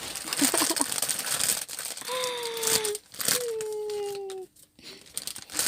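Crinkly gift wrapping being handled and pulled open, with irregular crackling throughout. Two short held tones, each falling slightly in pitch, sound in the middle.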